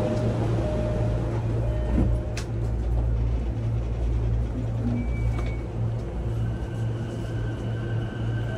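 Onboard running sound of a JR East E233-0 series electric train's motor car just after departing a station: a steady low rumble of the traction motors and wheels on rail, with a few light clicks. A level electric inverter whine comes in about six and a half seconds in.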